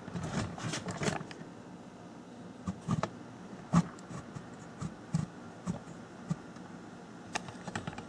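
Handling noise: rustling, then scattered light clicks and knocks as objects are moved about and set down, the sharpest knock a little under four seconds in.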